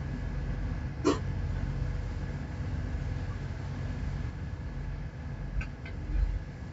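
A ship's engine runs with a steady low drone, and a short high squeak rises about a second in.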